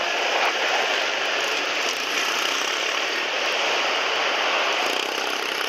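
Pit bike engines running hard at high revs, heard from on board as a steady, dense drone.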